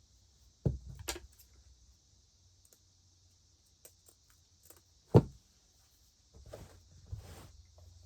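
Crickets chirring steadily and high-pitched in the background, under a few knocks and rustles of craft materials being handled; the loudest is a single sharp thump about five seconds in.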